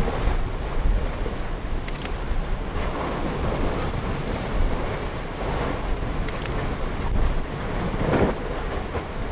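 Strong gusty wind rumbling on the microphone: a deep, steady noise that swells with each gust.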